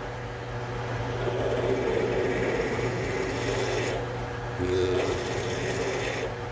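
Metal lathe running with a 5/16-inch twist drill in the tailstock drilling into a workpiece held in a four-jaw chuck: a steady motor hum under a rough, grinding cutting noise from the drill. The cutting noise eases off briefly around four seconds in and again near the end.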